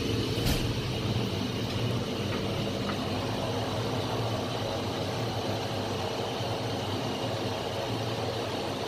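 Steady machinery and ventilation drone in a cruise ship's Azipod propulsion room: a low hum made of several steady tones under an even hiss. One brief click about half a second in.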